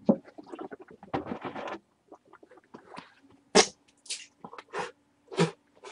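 A man gulping down water, then a string of short gagging noises as he struggles to swallow chewed-up cigarettes.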